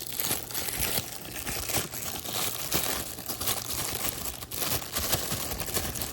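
Thin plastic bag crinkling and crackling as it is handled, in a dense, irregular run of small crackles.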